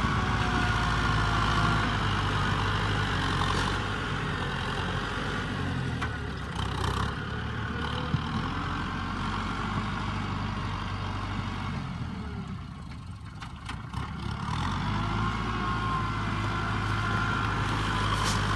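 Kubota farm tractor's diesel engine running steadily as the tractor works the soil with its front blade, with a thin whine over the engine's low drone. The drone drops off about five seconds in and comes back strong about fifteen seconds in.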